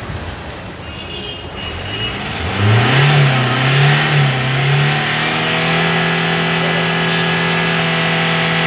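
Hyundai i20 1.4 CRDi four-cylinder diesel engine revved up from idle: the revs rise and waver for a couple of seconds, then are held steady at high rpm. It runs smoothly with no knocking, its fuel injectors freshly coded.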